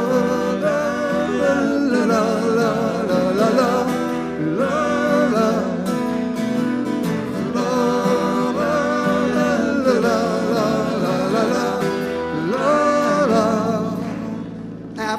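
Live band music: a wordless vocal refrain sung over strummed acoustic guitars, in phrases that rise and fall.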